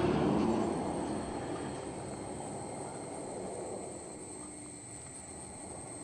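Wind rush and road noise of a moving motorcycle, a steady rushing hiss that fades gradually over the seconds.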